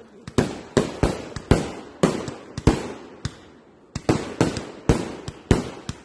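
A fireworks display going off: a rapid, irregular series of bangs, about two to three a second, each trailing off, with a short lull a little past the middle before they pick up again.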